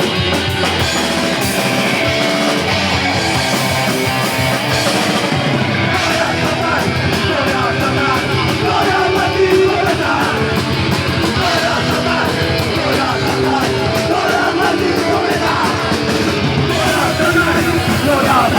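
Heavy metal band playing loud distorted guitar, bass and drums, with vocals coming in about six seconds in.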